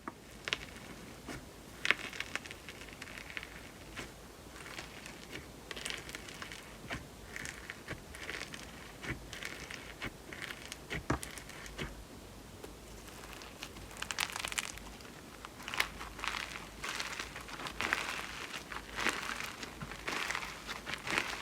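Slime being handled and kneaded by hand, giving many irregular small crackling pops and clicks that grow busier in the second half.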